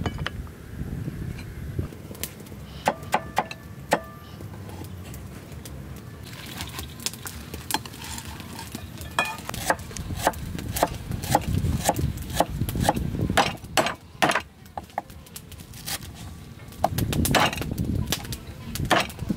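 Cleaver chopping ginger and lemongrass on a wooden cutting board: a long series of sharp knocks as the blade strikes the board. Before the chopping starts, a few ringing clinks of snail shells set on a ceramic plate.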